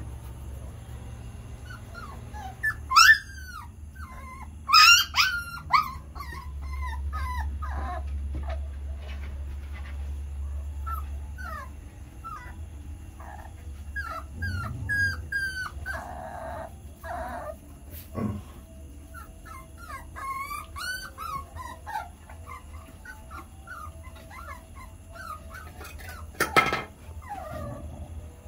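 Dogs whimpering and yipping in many short, high, wavering cries scattered throughout, with the loudest outbursts about 3 and 5 seconds in and a sharp yelp near the end.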